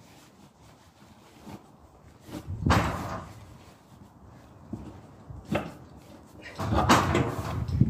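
Knocks and rattling clatter of load-securing work on a curtainside truck trailer, in three bouts: a loud one about two and a half seconds in, a short knock near five and a half seconds, and the loudest, longest one near the end.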